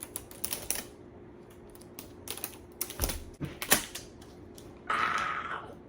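Rubber bands being stretched and snapped around a watermelon: a scatter of sharp clicks and snaps, with a short rasping sound near the end.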